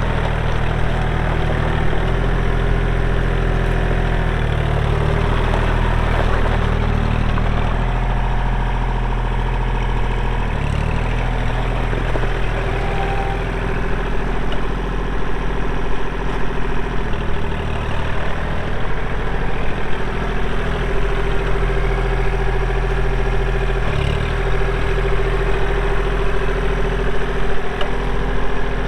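Kubota L2501 tractor's three-cylinder diesel engine running steadily while the loader and backhoe are worked, its pitch dipping briefly a few times.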